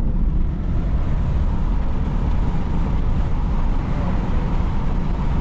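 Steady road noise inside a moving truck's cab: the engine and tyres drone evenly at highway speed while it tows a trailer.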